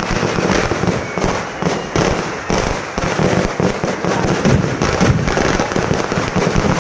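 A firecracker tree going off: many firecrackers bursting in quick succession, a loud, unbroken crackling and banging with several reports a second.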